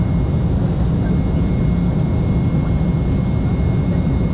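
Cabin noise of an Embraer 195LR jet airliner in flight, heard from a window seat over the wing. The GE CF34-10E turbofans and the rushing air give a steady deep roar, with a thin, steady high whine over it.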